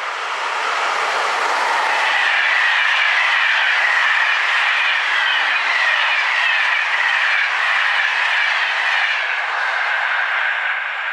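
SNCF BB 26000 (Sybic) electric locomotive and Corail passenger coaches passing at speed: steady rolling noise of steel wheels on the rails with a rush of air. It builds over the first two seconds as the train arrives, then holds steady while the coaches go by.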